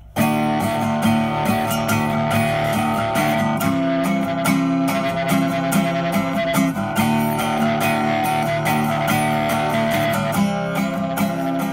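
Intro music: guitar-led instrumental with plucked, strummed notes and a steady rhythm.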